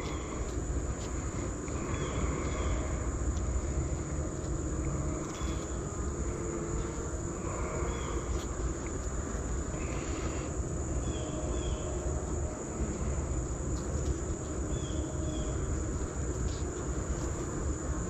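A steady high-pitched insect chorus over the hum of honey bees crowding an open hive frame.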